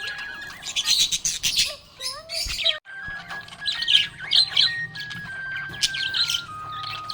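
Budgerigars chattering with rapid, high chirps and warbles, over background music of slow held notes. The sound drops out briefly about three seconds in.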